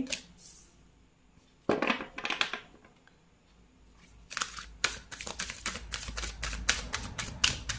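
Oracle deck being handled and shuffled: a short rustle of cards about two seconds in, then a rapid run of card clicks from about four seconds in.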